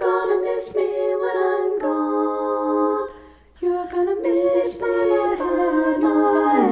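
Layered women's voices singing a cappella in four-part harmony, holding chords, with a short break about three seconds in before the voices come back in.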